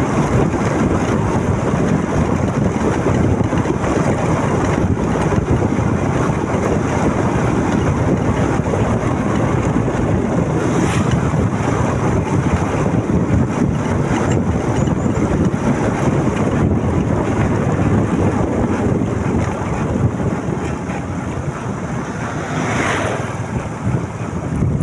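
Steady wind rush on the microphone mixed with the running motorcycle and road noise while riding, easing off a little near the end.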